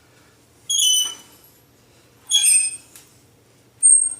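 Manual bead roller with a tipping die squeaking three times as it is cranked, turning an edge on a steel patch panel. Each squeak is short and high-pitched.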